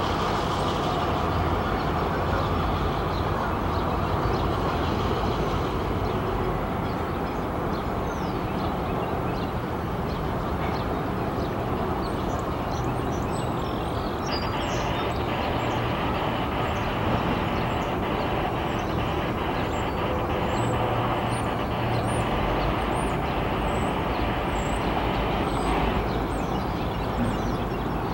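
Freight train of covered hopper cars rolling past, a steady, continuous rumble of steel wheels on the rails.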